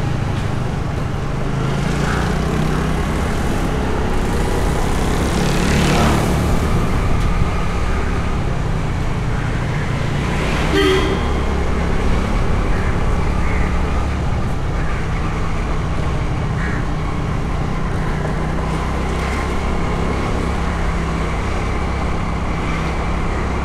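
City street traffic: steady engine and road noise, with a vehicle passing close by about six seconds in and a short horn toot about eleven seconds in.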